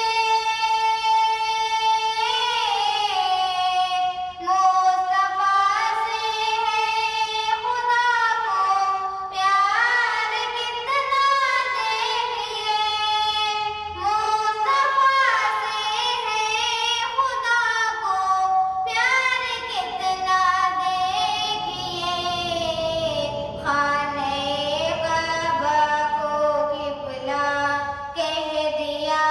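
A girl singing an Urdu naat (devotional song in praise of the Prophet) solo, with no instrument heard, in long phrases full of sliding ornaments, pausing briefly for breath between lines.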